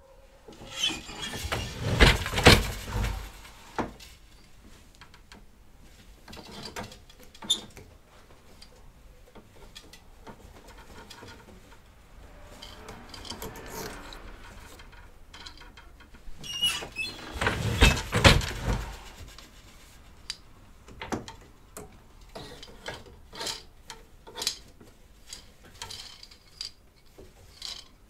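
Wooden floor loom weaving twill by hand: two clusters of loud wooden knocks about fifteen seconds apart as the beater packs in the weft, with quieter clicks, creaks and the rustle of the shuttle passing through the warp between them.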